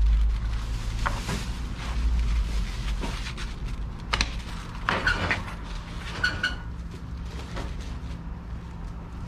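Styrofoam food trays and plastic gloves being handled as pieces of rice cake are packed: scattered light clicks and knocks, with a couple of short squeaks, over a steady low hum.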